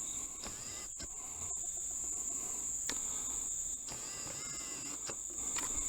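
Steady high-pitched chorus of insects, a continuous even drone.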